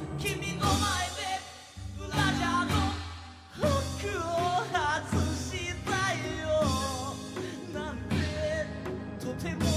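Male vocalist singing a slow song live, accompanied by acoustic guitar and band, holding notes with a wavering pitch.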